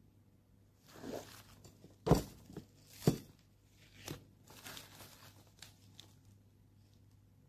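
Black plastic packaging being torn open and crinkled by hand while a small capacitor is unwrapped, with two louder sharp crackles about two and three seconds in, and the rustling dying away about six seconds in.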